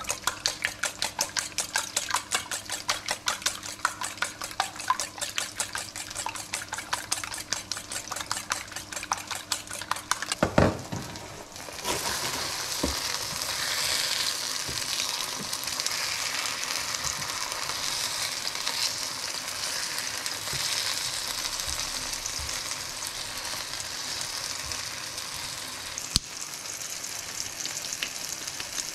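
Wire whisk beating eggs in a stainless steel bowl: fast, even metal-on-metal clicking. About ten seconds in there is a knock, then tomato slices sizzle steadily in hot oil in a frying pan.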